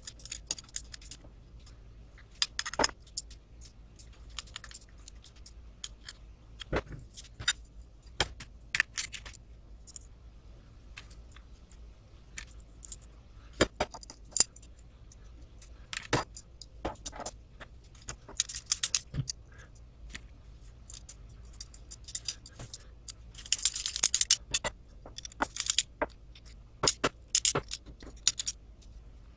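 Clicking, tapping and clinking of small hardware and a screwdriver as an RC truck kit chassis is put together by hand, with scattered sharp taps as the parts and frame rails are handled and set down. There is a denser stretch of rattling and scraping near the end.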